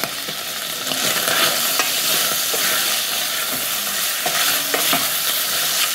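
Chunks of boiled cow heart frying in oil in a stainless steel pot, sizzling steadily while a wooden spoon stirs and scrapes them around: the meat is being browned.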